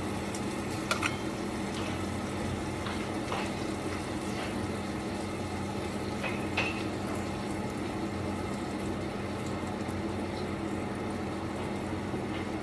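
Metal tongs tapping now and then against a frying pan as spam pieces are turned in oil, over a steady hiss and a low hum.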